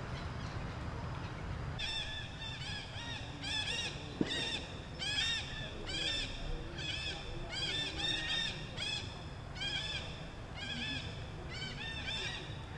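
Animal calls: a rapid series of short, high-pitched calls, each rising and falling, several a second, starting about two seconds in, over a steady low background rumble. A single sharp click about four seconds in.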